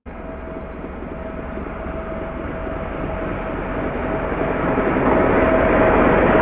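Diesel shunting locomotive running light as it approaches and passes close, its engine and wheels growing steadily louder, with a steady whine running through the noise.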